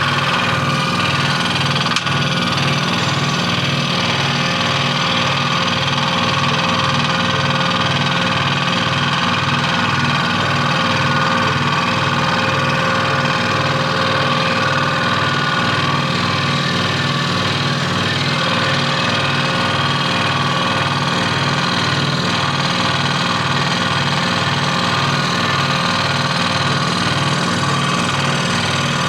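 AF-eco1 scroll saw running steadily with an even, rhythmic pulse, its blade cutting through wood.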